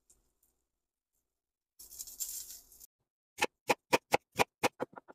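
A second of sizzling from sausages in a cast iron skillet, then a knife slicing an onion on a wooden cutting board: sharp, even chopping strokes about four a second, starting a little past halfway.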